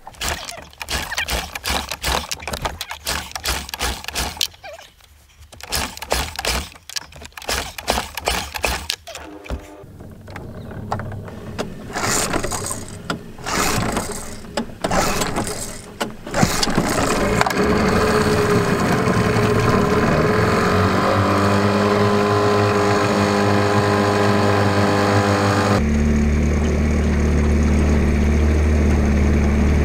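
Small outboard motor being pull-started: it sputters and fires unevenly for several seconds, catches, and then settles into a steady run.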